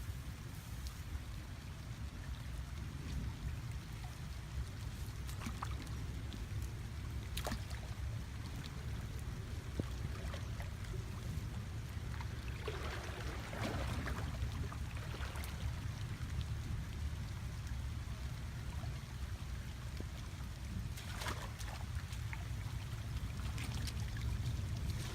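Water splashing and trickling, with short splashy swishes at a few points, over a steady low rumble.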